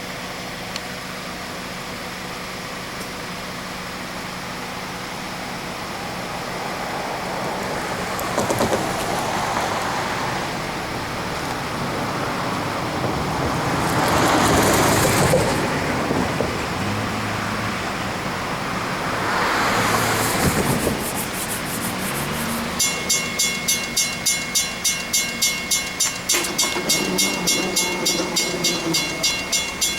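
A few vehicles pass one after another, then about three-quarters of the way in a railroad crossing's warning bell starts ringing with a fast, even beat, signalling that a train is approaching. A low note joins the bell near the end.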